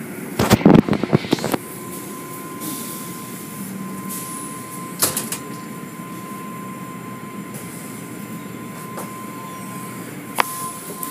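Automatic car wash tunnel machinery running, a steady mechanical noise. A cluster of sharp knocks comes about half a second in, another around five seconds and a third near the end, and a thin steady tone sets in about a second and a half in.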